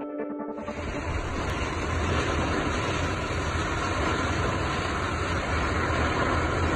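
Storm-force wind blowing steadily, with a low rumble of wind buffeting the phone's microphone; the tail of some music fades out just before it begins.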